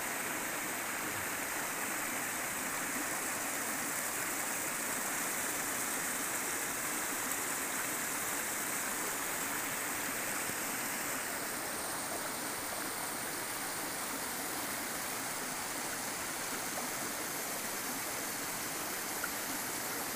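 Shallow, rocky river flowing over and between boulders and stones: a steady rush of running water.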